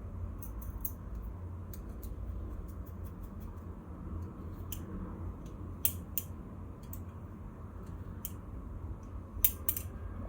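Small metal clicks and taps of balisong knife parts (steel handles, blade, washers, pivot hardware) being handled and fitted together, scattered irregularly, with a few sharper clicks about six seconds in and near the end. A steady low hum lies underneath.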